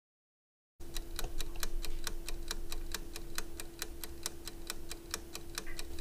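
Clock-ticking countdown sound effect: quick, evenly spaced ticks, about five a second, over a steady hum. It starts about a second in and cuts off suddenly at the end.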